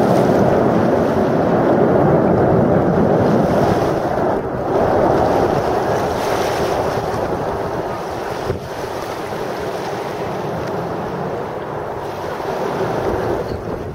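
Jet roar from a formation of Aermacchi MB-339 jet trainers, each with a single Viper turbojet, passing overhead. It is a steady, rushing roar that is loudest in the first few seconds and eases slightly later on.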